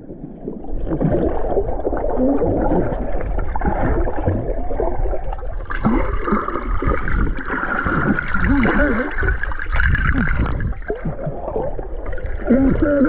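Muffled underwater sound picked up by a submerged camera: bubbling and gurgling water with wavering, warbling tones, joined by a steadier high hum from about six seconds in.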